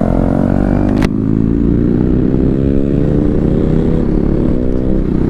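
Yamaha R15 V3's single-cylinder engine through an Akrapovic slip-on exhaust fitted on the stock bend pipe, with a bassy note. The revs fall, break off sharply about a second in, then climb steadily for about three seconds before dropping near the end.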